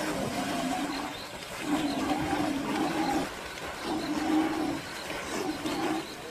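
A large animal calling during a predator attack: about four drawn-out, steady-pitched cries, each about a second long, with short gaps between them.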